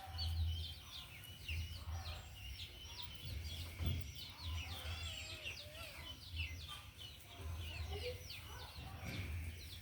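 Many birds chirping at once, a dense chorus of quick high chirps, over a low rumble that comes and goes.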